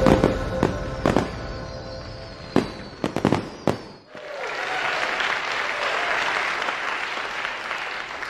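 Intro music with a few sharp firework bangs, fading out over the first four seconds. Then, from about four seconds in, steady audience applause.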